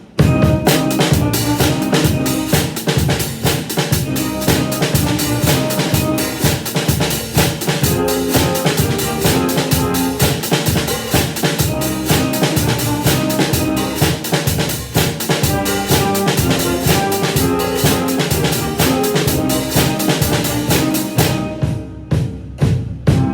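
Drum set playing a blues groove, with bass drum and snare strokes in a steady rhythm, along with a band backing track carrying brass and other pitched parts.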